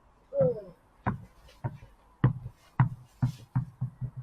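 A ball bouncing repeatedly on a hard surface after being hit, about eight sharp knocks that come quicker and quicker as it settles.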